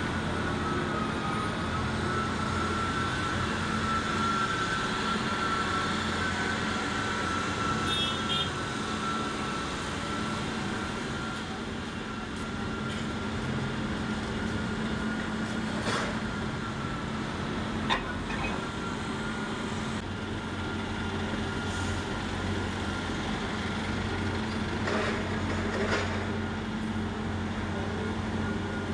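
Steady engine drone of a forklift and other yard machinery, with a high whine that fades out about ten seconds in. A few sharp clicks come later.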